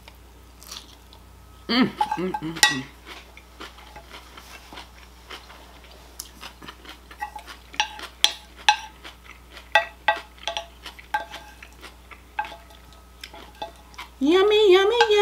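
Spoon and fork clicking and scraping against a plate while salad is gathered up, a string of light clicks. There is a brief vocal sound about two seconds in and a held hummed 'mmm' near the end.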